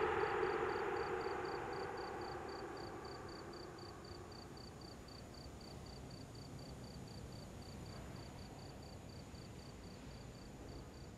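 Ambient synth music fading out over the first few seconds, leaving a faint cricket chirping steadily, about four chirps a second, over a low hiss of night ambience.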